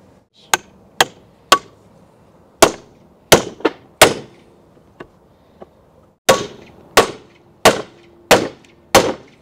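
Ball-peen hammer striking a steel socket used as a driver, knocking a part into a piece clamped in a bench vise. About a dozen sharp metal-on-metal blows come with a short lull midway, and the later blows leave a brief ring.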